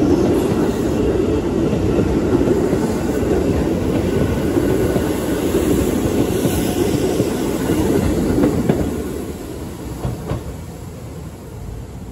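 Keisei 3500-series electric commuter train running past close by, its wheels loud on the rails. The sound falls away about nine seconds in as the end of the train goes by.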